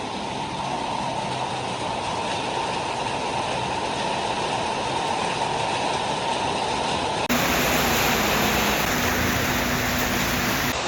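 Heavy tropical rain shower falling as a steady hiss. About seven seconds in the sound jumps abruptly to a brighter, slightly louder hiss.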